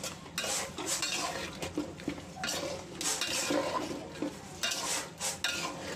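A metal spoon scraping and clinking against a metal bowl and cooking pot as cut potatoes are scooped into spice paste and stirred, in irregular strokes.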